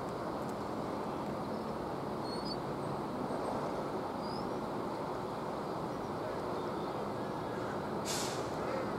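Steady low rumble of harbour machinery around berthed warships, with a couple of faint chirps. A short hiss of released air sounds about eight seconds in.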